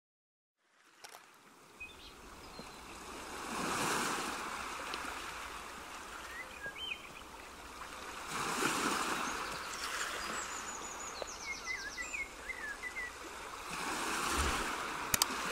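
Waves washing in, swelling about every five seconds, with scattered bird chirps; a few quick clicks near the end.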